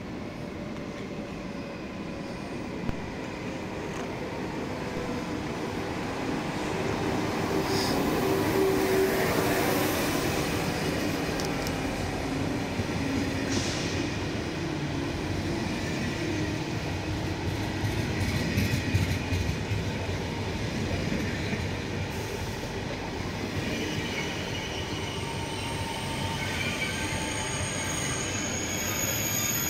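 Thalys high-speed electric trainset pulling into the station and slowing, its running noise growing louder over the first several seconds as it draws in. Over the last few seconds a high, thin squeal from the wheels and brakes rises above the rumble.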